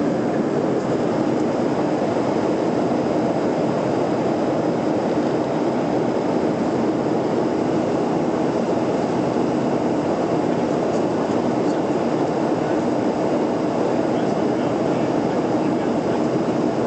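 Steady cabin noise of a jet airliner in cruise, heard inside the cabin: an even, unchanging rush of airflow and engines.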